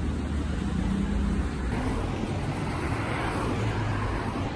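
City street traffic: steady engine and tyre noise, with a car passing about three seconds in.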